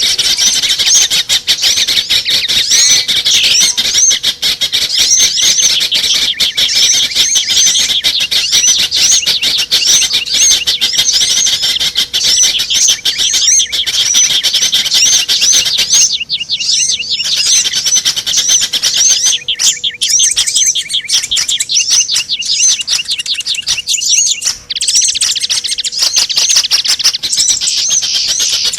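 Dense, loud chirping of many small songbirds, rapid high calls packed closely together: a bird-lure (pikat) recording meant to draw small birds in. A faint steady hum runs underneath, and the chirping breaks off briefly a couple of times in the second half.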